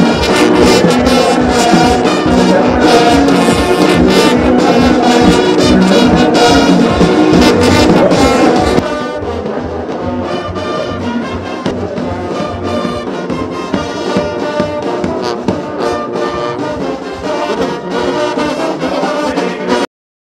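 Military brass band playing a march, with sousaphones and brass over a steady drum beat of about two beats a second. About nine seconds in the music drops noticeably quieter but carries on, then cuts off suddenly near the end.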